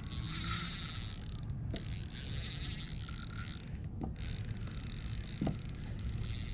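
Spinning reel being wound in while a hooked fish is played, its mechanism making a ratcheting sound, over a steady low rumble.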